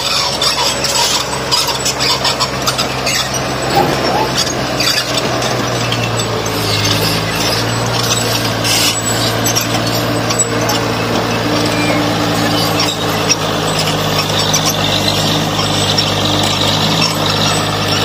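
Diesel engine of heavy earthmoving machinery running steadily under load, with irregular knocks and scraping over it.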